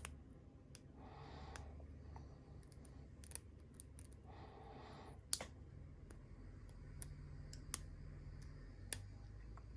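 Hook pick and tension wrench working the pin stack of a Master Lock M530 padlock: scattered small, sharp metallic clicks a second or so apart, with faint scraping in the keyway. The pins are binding under the tension wrench while the picker feels for one to set.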